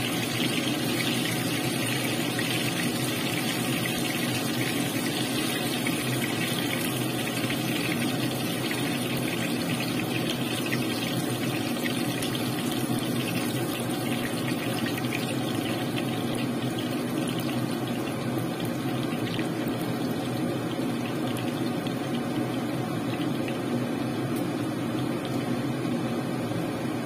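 Hot oil sizzling and crackling as battered chicken pieces deep-fry in a pan, with a steady low hum underneath. The crackle eases somewhat after the first dozen seconds.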